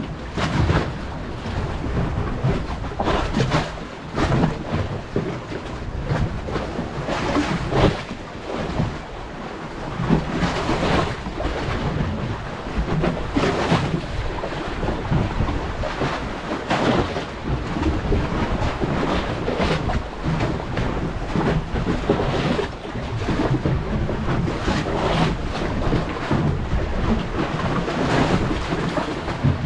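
Strong sea wind buffeting the microphone in uneven gusts, with a low rumble, over the wash of choppy waves against the breakwater.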